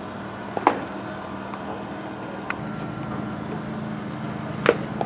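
A baseball popping sharply into a glove twice, about four seconds apart, the first under a second in and the second near the end, over a steady engine-like hum.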